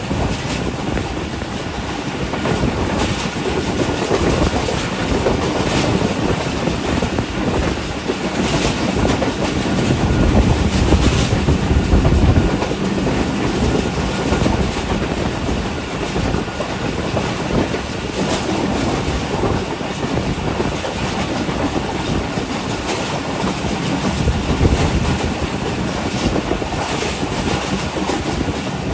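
Shalimar Express passenger train running along the track, heard from an open door of the coach: a steady rumble of the wheels with clacks over rail joints now and then.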